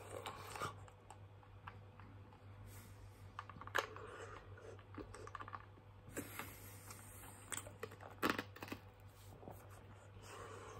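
Faint mouth sounds from sucking on a hard lollipop: scattered small clicks and wet smacks at irregular moments, loudest about four seconds in and again about eight seconds in, over a low steady hum.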